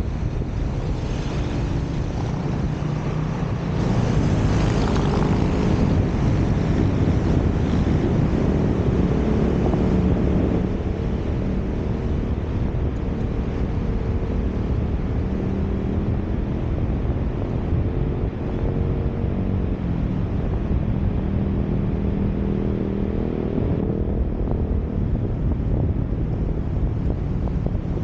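Wind rushing over the microphone of a camera on a moving car, over a low engine and road rumble with faint drifting engine tones. It grows louder for several seconds from about four seconds in.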